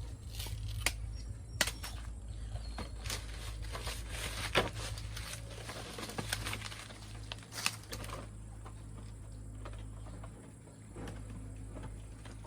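Rustling of sugarcane stalks and dry leaves being handled in the harvest, with a few sharp knocks or snaps scattered through it.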